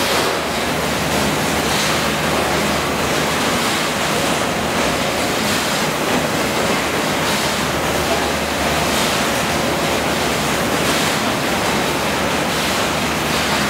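Steady din of a fish-processing line: machinery running with a low hum under a continuous rushing hiss, with a few brief clatters of metal trays and fish being handled.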